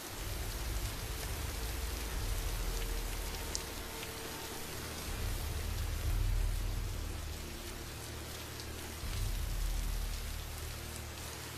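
Rain falling steadily, with a low rumble underneath that swells and fades several times.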